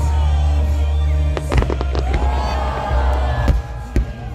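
Aerial firework shells bursting: a quick cluster of sharp bangs about a second and a half in, then two more near the end, over loud music with a heavy, steady bass.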